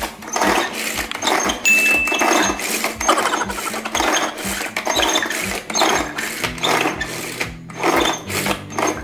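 Manual pull-cord food chopper pulled again and again, its double blades whirring in quick spurts inside the plastic bowl against shallots, garlic and chili; the pulls are too weak to cut them through. Background music plays underneath.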